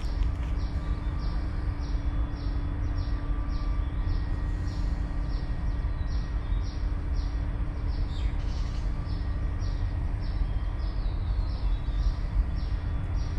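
Night insects chirping in a high, regular rhythm, about two chirps a second, over a steady low rumble. A single falling call cuts across them about eight seconds in.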